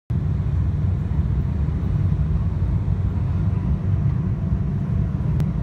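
Jet airliner cabin noise during a roll along the runway: a steady, loud low rumble from the engines and the runway. A faint click comes near the end.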